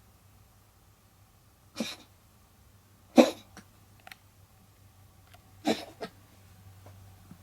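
Domestic cat coughing three times, a second or two apart, each cough short, the second the loudest. It is the kind of cough a cat gives when trying to bring up a hairball.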